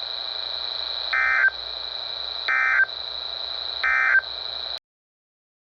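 Emergency Alert System end-of-message code: three short buzzy data bursts about a second and a half apart, marking the end of the alert. Under them runs a steady high tone with radio hiss, and everything cuts off suddenly near the end.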